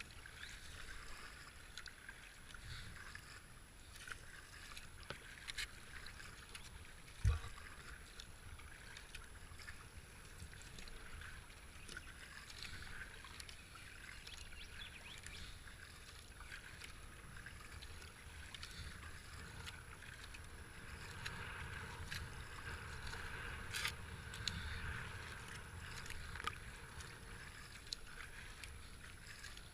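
Faint sound of a kayak being paddled: the paddle dipping and water running along the hull in a steady wash, with scattered small clicks and one sharp knock about seven seconds in.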